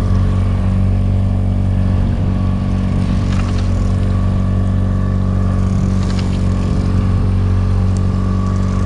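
Boat's outboard motor running steadily at trolling speed, an even low drone, with a few faint clicks about three and six seconds in.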